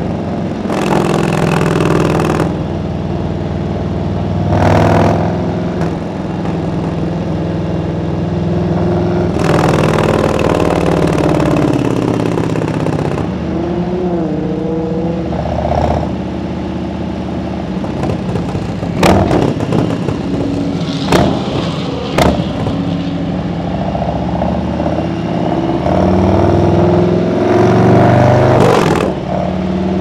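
Harley-Davidson Road Glide Special's Milwaukee-Eight V-twin running under way, its pitch rising and falling as the rider accelerates and eases off, with gusts of wind rushing over the microphone. A few sharp cracks about two-thirds of the way through.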